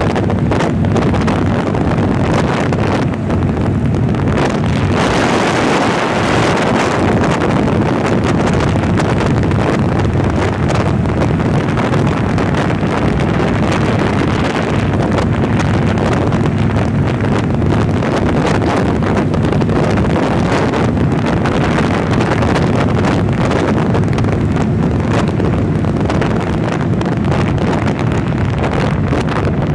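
Wind buffeting the microphone on a moving cruiser motorcycle, over the steady hum of its engine at cruising speed.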